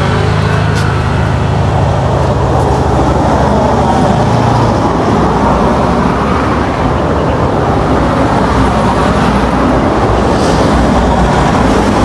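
Road traffic: motor vehicles driving past with their engines running, steady and loud.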